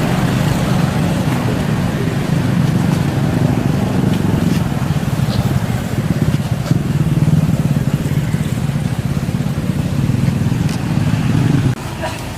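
A steady low motor rumble, like an engine running close by, that drops away suddenly near the end.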